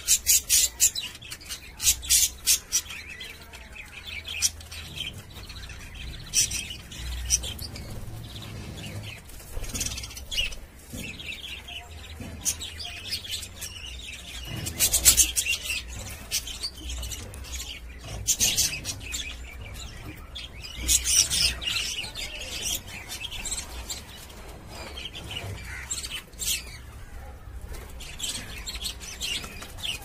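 Budgerigars chirping and chattering in bursts of rapid, high-pitched chirps, loudest near the start, around the middle and again a few seconds later.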